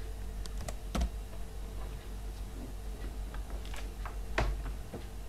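Computer keyboard being typed on: irregular single keystroke clicks, a few at a time, over a low steady hum.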